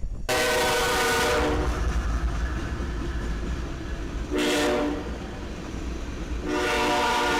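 Locomotive air horn sounding a chord: a long blast, a short one, then another long blast starting near the end, over the low rumble of the train. The long-short-long order matches the close of the grade-crossing warning signal.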